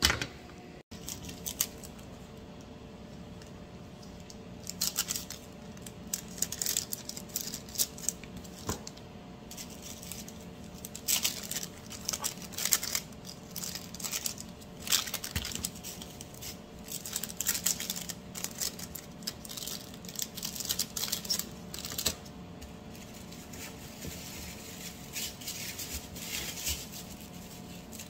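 Clear plastic packaging bags crinkling and rustling in short, irregular bursts as pastries are slipped into them and handled, over a steady low hum.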